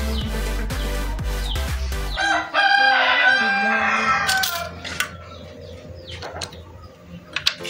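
Background music for about the first two seconds. Then a rooster crows once, loudly, for about two seconds. After the crow come a few light clicks and taps.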